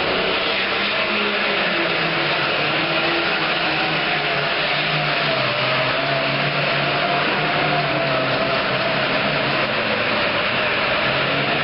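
Super farm pulling tractor's turbocharged diesel engine running hard under full load during a pull, a loud steady drone with a tone that wavers slowly in pitch.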